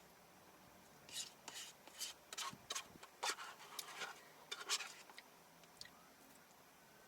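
Spoon scraping and digging through a Dairy Queen Blizzard in its cup: a run of short scratchy scrapes and clicks between about one and five seconds in.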